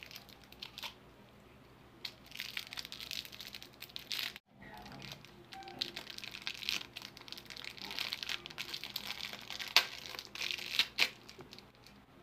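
A clear plastic lollipop wrapper being crinkled and peeled off a hard candy lollipop by hand: irregular crackling that starts about two seconds in, with a few sharper cracks near the end.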